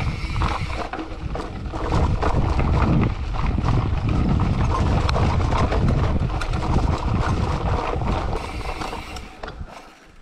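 Wind rushing over the camera's microphone while a bicycle rattles over a rough trail, with many small knocks. It dies down about nine seconds in.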